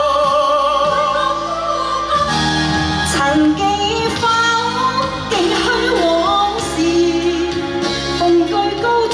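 Live pop song performance through a PA with band accompaniment. A sung note is held with vibrato at first, then the backing music moves on and a woman sings the melody.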